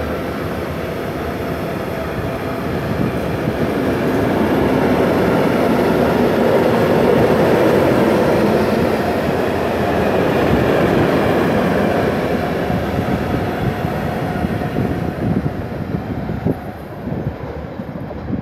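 Freight train of tank wagons rolling past at close range: a steady rumble of wheels on rail that swells to its loudest midway, then fades as the end of the train moves away, with a few sharp knocks near the end.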